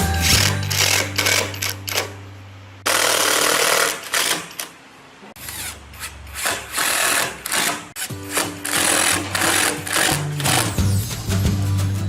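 Background music with a fast, driving percussive beat over steady bass notes, broken about three seconds in by a loud burst of hiss lasting about a second.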